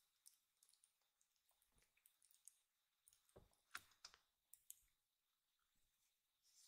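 Faint, irregular wet clicks of a young kitten licking its front paw, a few sharper ones coming about three to five seconds in.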